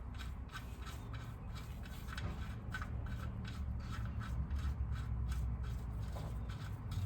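Light irregular clicks, a few per second, over a steady low hum: hand-tool work refitting the oil drain plug on the oil pan.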